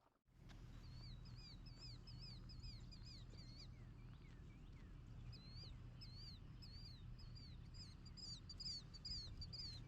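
A small bird singing a long run of quick, repeated chirps, about two a second and coming faster and louder near the end, over a steady low rumble.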